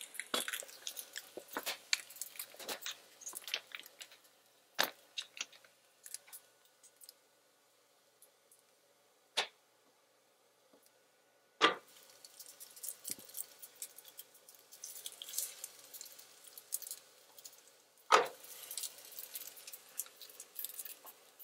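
Flatbread dough cooking on an electric griddle, with faint crackling in patches, mostly in the second half. Scattered small clicks and taps and four sharper knocks go with it, over a faint steady hum.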